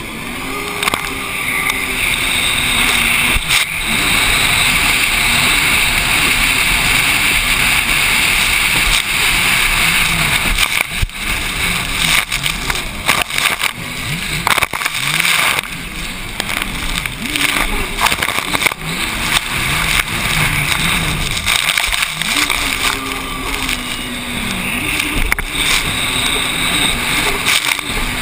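Racing jet ski's engine running hard, its pitch wavering up and down with the throttle, under a constant rush of wind and spray on the helmet-mounted microphone.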